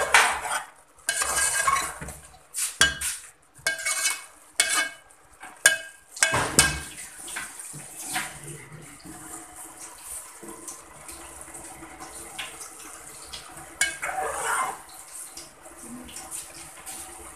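A metal slotted spoon scraping and clanking against an aluminium pot as rice is stirred into jaggery syrup. There is a quick run of ringing knocks and scrapes over the first several seconds, then it goes quieter, with one more short bout of scraping about fourteen seconds in.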